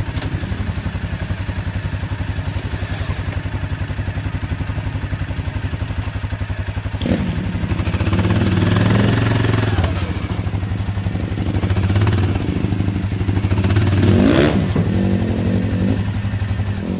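Yamaha Kodiak ATV's single-cylinder engine idling with a steady pulse, then revving in surges from about seven seconds in as it is ridden up ramps into a pickup bed, with a last rise and fall near the end.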